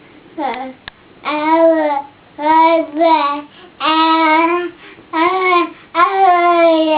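Infant cooing: a string of about six drawn-out, sing-song vowel sounds, each under a second long, with a short tap about a second in.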